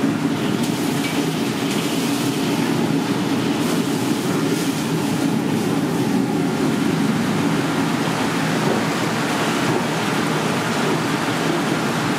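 Steady roar of a commercial kitchen's machinery, a constant rushing noise with no distinct events.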